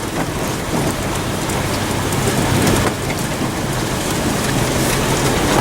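Steady hiss and rush of water around a truck driving over a flooded trail, with the engine's low hum underneath.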